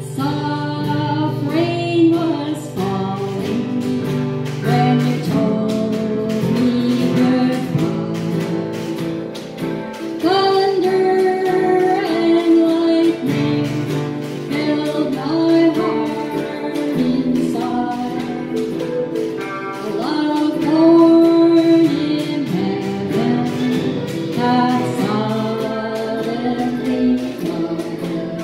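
A woman singing a song, accompanied by an acoustic guitar played with a steady strum.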